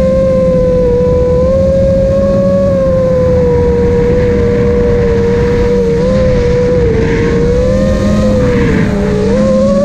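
FPV quadcopter's brushless motors whining steadily, the pitch wavering gently with throttle and dipping near the end before climbing again, over a dense rush of prop wash and wind noise.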